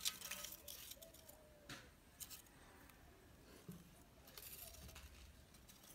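Faint scattered clinks and knocks of lump charcoal being stacked by hand in a steel wheel-rim grill, a few seconds apart.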